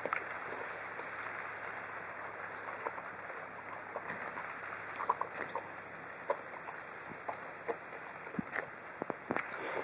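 Samoyed eating chunks of meat from a plastic bowl: irregular wet chewing and smacking, with scattered clicks of teeth against the bowl, over a steady background hiss.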